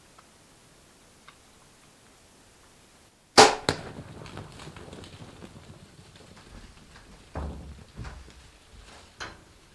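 A compound bow shot: a sharp, loud snap of the string released about three and a half seconds in, with a second click right after. Then a few seconds of scuffling as warthogs and antelope bolt from the waterhole, and a few more knocks near the end.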